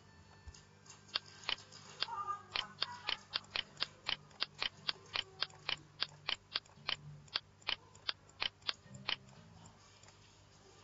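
Computer mouse button clicked rapidly about thirty times, sharp clicks at about three to four a second, starting about a second in and stopping about nine seconds in.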